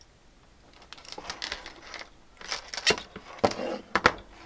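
Small metal snap-fastener parts clinking and rattling as they are picked from a pile and handled, with a few sharp clicks near the end.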